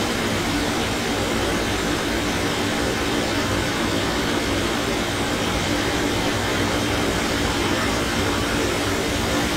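Steady background hum and hiss of a running machine, even throughout with no other events.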